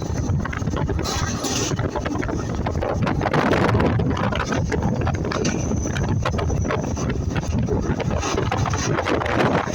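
Moving passenger train running, steady rumble and clatter with wind buffeting the microphone, and a brief hiss about a second in.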